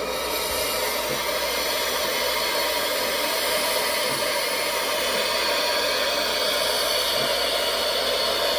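KM1 gauge 1 model of a DB class 01.10 steam locomotive giving off a steady hissing, whooshing noise while it pours smoke, with no clear chuff beat.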